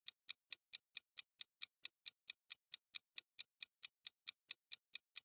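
Quiz countdown-timer sound effect: faint, evenly spaced clock ticks, about four a second, marking the seconds left to answer.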